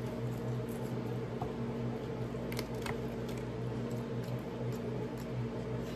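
Close-up chewing of a mouthful of fried chicken wing: wet, squishy mouth sounds with a few small clicks, over a steady low hum.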